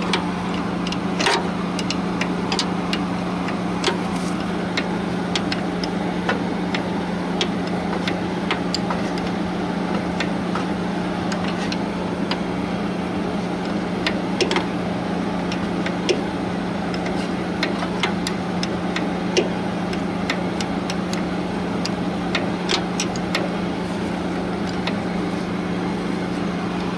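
Diesel engine idling steadily, with scattered sharp ticks and clicks over it.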